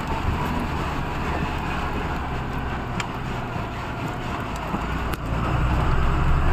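Truck engine running steadily with a low hum, growing louder about five seconds in.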